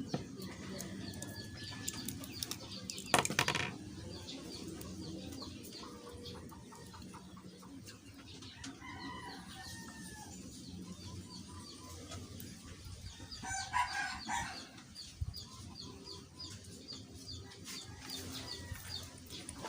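Chickens clucking and calling in the background, with a louder call about two-thirds of the way through. A couple of sharp clicks a few seconds in.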